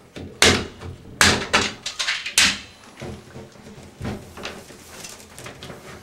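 Hard plastic clicks and knocks as a 66 punch-down block is worked off its plastic standoff bracket: a few sharp snaps in the first two and a half seconds, then fainter handling clatter.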